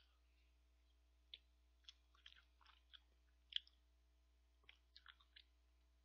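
Faint eating sounds as spoonfuls of ice cream are taken: about a dozen short, soft clicks of a metal spoon and mouth smacks, the sharpest about three and a half seconds in.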